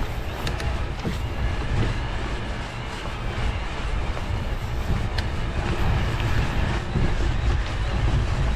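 Wind rumbling on the microphone over the running noise and occasional rattles of a Trek Powerfly 4 electric mountain bike riding a rough track.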